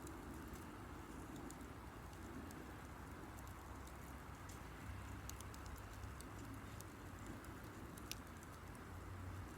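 Wood campfire crackling faintly, with scattered small sharp pops and ticks over a low steady hiss.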